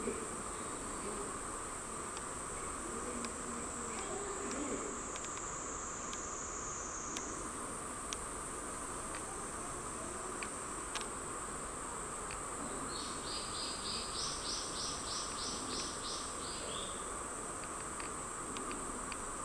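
Cicadas droning steadily in a high, continuous buzz. A second insect or bird call pulses about ten times in a quick even series a little past the middle.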